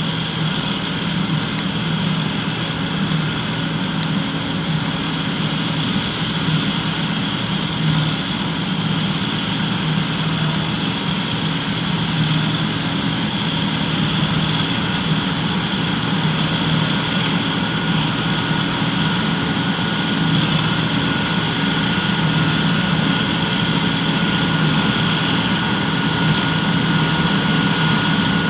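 John Deere 9580 WTS combine harvester running steadily, a continuous engine drone with a thin steady whine above it in the second half.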